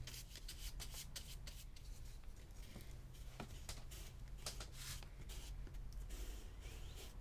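Faint crackling and rustling of paper and bookbinding mull as fingers press and smooth the freshly glued mull down onto the text block, with many small irregular ticks.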